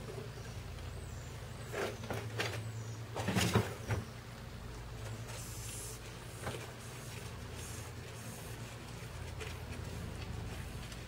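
Cardboard egg cartons being rummaged and shifted inside a glass tank while digging out Madagascar hissing cockroaches: a few short rustles and knocks, loudest about three and a half seconds in, with another about six and a half seconds in. A low hum sits underneath.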